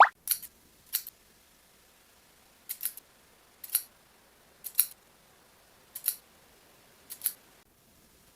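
Editing sound effect of short, crisp snips: about seven, spaced roughly a second apart, several of them doubled.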